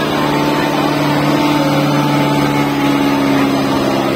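Kubota tractor's diesel engine running hard and steady while hauling a loaded trolley through soft field soil in a pulling contest.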